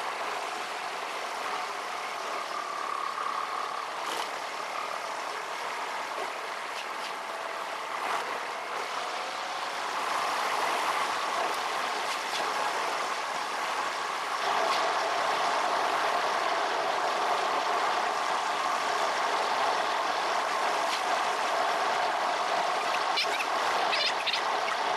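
Car engine and road noise from inside the cabin, sped up fourfold so the drone sits high with little bass. It is steady and grows louder partway through.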